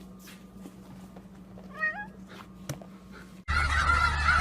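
A faint, short cat meow rising in steps, about two seconds in, over a quiet background with a few light clicks. About a second before the end, a sudden louder background with chicken calls cuts in.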